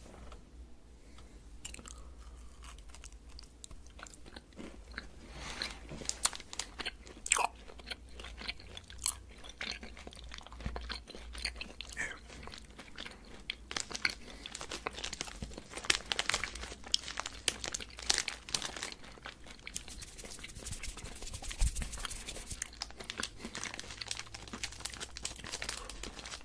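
A sugar-coated cider gummy being chewed close to the microphone: irregular crunchy bites, sparse at first and growing denser through the second half.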